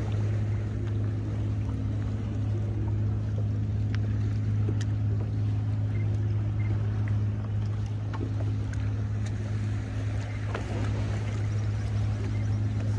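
Steady low hum of a boat motor running, with a few faint ticks over it.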